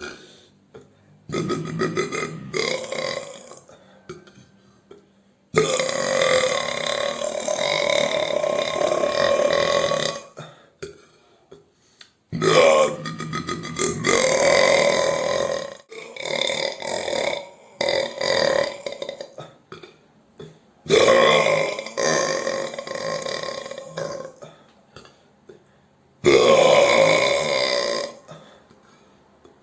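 A run of loud human burps, about half a dozen one after another with short pauses between them, several of them long drawn-out belches lasting a few seconds each.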